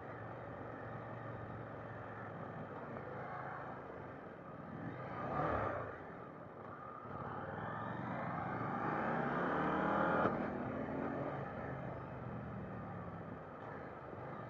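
KTM 890 Duke GP's parallel-twin engine heard from the saddle with wind noise. There is a brief louder swell about five seconds in. Then the engine pulls with a steadily rising note for about three seconds, and the throttle is shut off sharply about ten seconds in.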